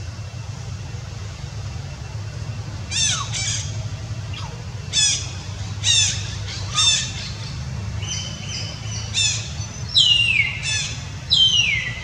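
Infant macaque squealing: a run of short, high cries that each sweep downward in pitch, starting a few seconds in, sparse at first and coming faster and louder near the end. A steady low rumble lies underneath.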